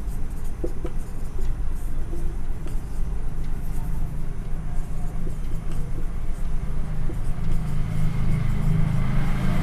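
Steady low rumble of a motor vehicle's engine running nearby.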